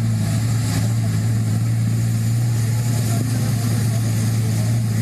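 A vehicle engine running with a steady low hum, under the noise of passing road traffic.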